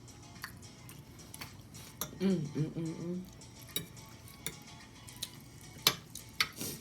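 Metal fork clicking and scraping against a dish while eating linguine, in scattered sharp clicks with the loudest few near the end. About two seconds in, a short hummed voice sound of a person eating.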